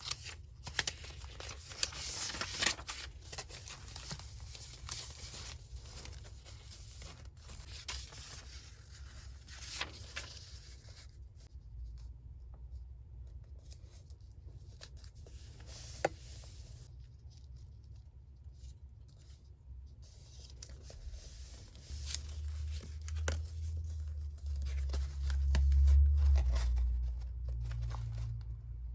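Paper being torn and handled in crisp, rustling bursts, busiest in the first third. A deep low rumble comes in during the last quarter and is the loudest sound.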